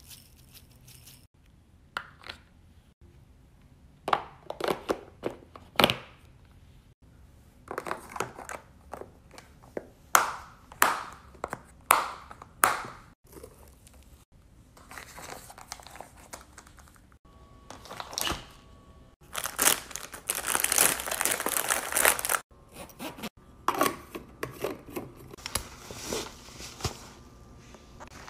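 Lunch being packed: plastic food containers and lids clicking and knocking, with bursts of crinkling. About two-thirds of the way through comes a longer, denser rustle of about three seconds.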